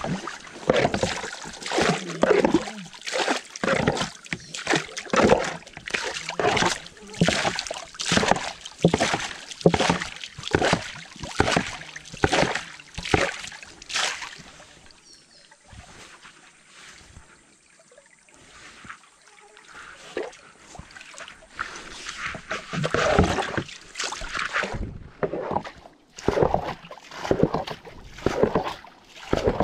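Paddle strokes in river water as a small boat is paddled along: a quick, even run of splashing strokes that stops for several seconds midway and then starts again.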